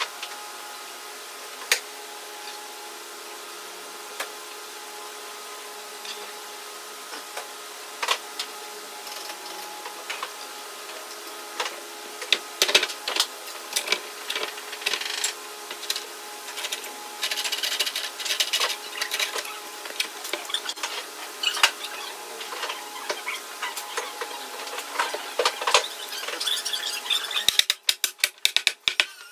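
Thick wooden boards being handled on a workbench: scattered sharp knocks and rubbing of wood on wood as the planks are shifted into place, busiest in the second half. A steady hum lies underneath, and a quick run of clicks comes near the end.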